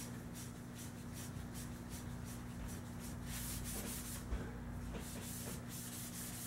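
Abrasive rubbed back and forth along a Crosman 760 air rifle's metal barrel to polish out rust speckles and machining ridges, as a rapid scratchy rasp. It runs at about four quick strokes a second, then changes to longer, louder strokes a little past halfway.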